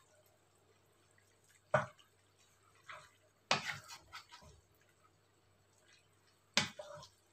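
Wooden spatula knocking and scraping against the side of a stainless steel pot while stirring pasta: a sharp knock about two seconds in, a quick run of clacks and scrapes around the middle, and another knock near the end.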